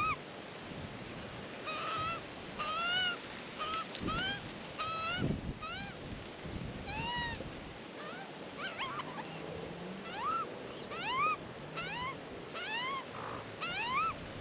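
Australian magpies calling: a steady run of short calls that each sweep upward in pitch, about one or two a second.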